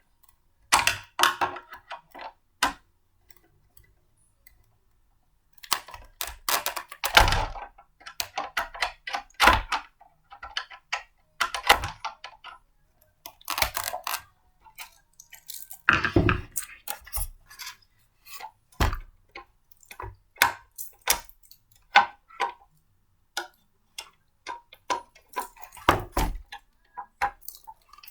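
Blender parts being handled and fitted together by hand: an irregular run of clicks, knocks and clatters in clusters, with short pauses. No motor is running.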